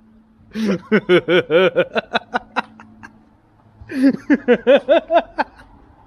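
A man laughing heartily in two bouts, each a quick run of rhythmic ha-ha pulses, with a short pause before the second bout about four seconds in.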